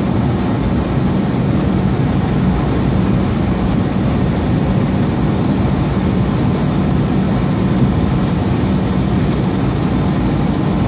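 Semi-truck's diesel engine and road noise heard from inside the cab at freeway speed, a steady low drone.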